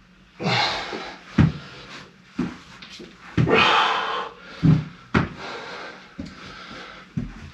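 A man breathing hard and panting through the mouth during a bear crawl, in long rasping breaths, with several short low thuds between them.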